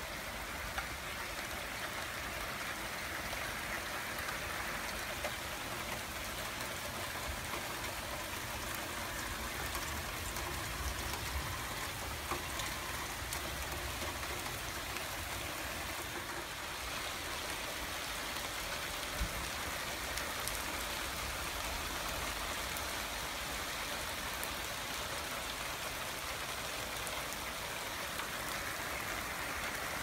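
Steady spring rain falling on grass and paving: an even hiss with a few louder individual drops.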